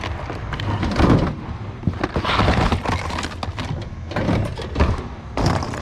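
Hands rummaging through a thrift-outlet bin of goods such as DVD cases: repeated irregular clacks, knocks and clatters over a steady low hum.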